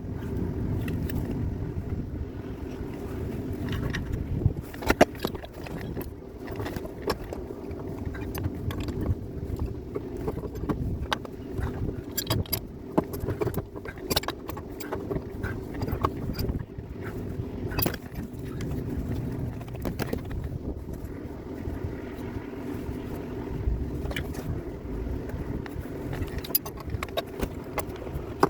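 Metal tools and fittings clicking and clinking at irregular intervals during gas regulator and piping work on a rooftop package unit, over a steady mechanical hum.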